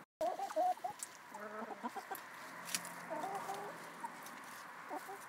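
Several hens clucking in a run of short calls while they forage on a compost pile, loudest in the first second, with a few light clicks.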